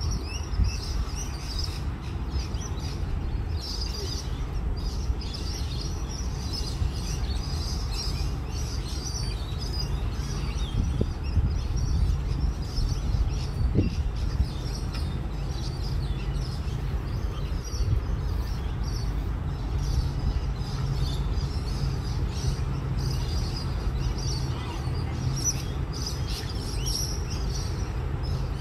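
Distant freight train rumbling low and steady as its locomotives haul it across a steel truss bridge, with birds chirping over it.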